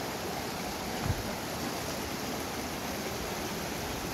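Steady rush of a rocky mountain stream running over rapids, with a brief low thump about a second in.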